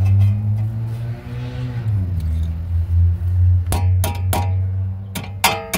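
Several sharp metallic clinks with a short ring, starting about four seconds in: a metal tool tapping the brake caliper and its pad spring clip. A steady low hum runs underneath.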